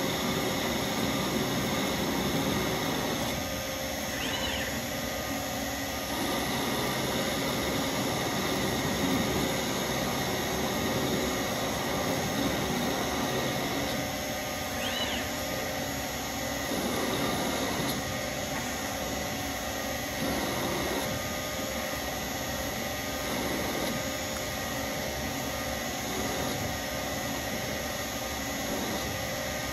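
Shopmaster Mill Turn running as a CNC lathe: a steady machine hum and whine from the spindle and the hybrid-servo axis drives, shifting every few seconds as the tool moves through a turning program. Two short high chirps sound about 4 and 15 seconds in.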